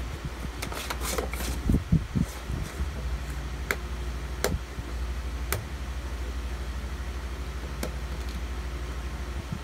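Steady low hum of a running fan or air conditioner. Over it, in the first few seconds, come soft thumps and clicks, then a few sharp isolated clicks, as a small long-haired dog noses and chews at a chocolate bar on a wooden floor.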